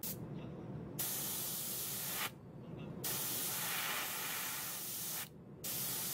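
Black paint sprayed in three short hissing bursts. The first starts about a second in, and the middle one is the longest, at over two seconds.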